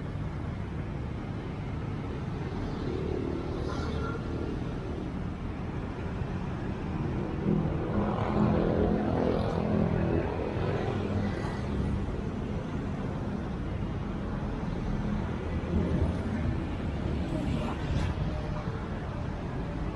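Street traffic: a steady rumble of engines, with a vehicle passing close and louder about eight to eleven seconds in.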